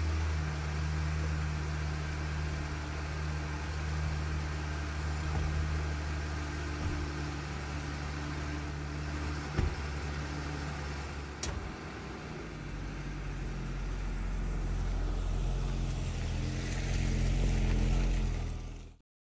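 A car engine idling with a steady hum, and a car door shutting about ten seconds in. Near the end the engine's low rumble swells as the SUV pulls out and drives off.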